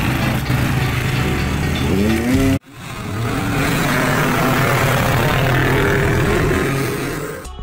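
Several dirt-bike engines idling with a quick rev rising in pitch about two seconds in. The sound cuts out abruptly, then more motorbike engine noise follows.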